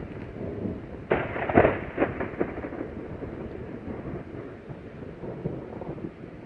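Thunder: a sudden crackling crash about a second in, with several sharp cracks over the next second and a half, then a low rumble that carries on.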